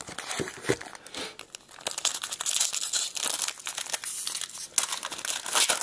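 Plastic-foil wrapper of a trading card pack crinkling and tearing as it is ripped open by hand, a dense run of crackles.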